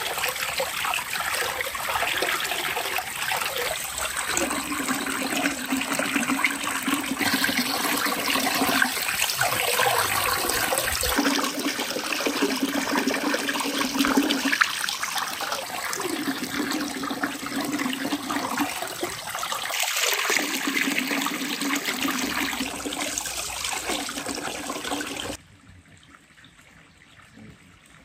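Water pouring from a spout and splashing over fish pieces being rinsed by hand in a metal basin. Near the end the splashing cuts off abruptly, leaving only faint background noise.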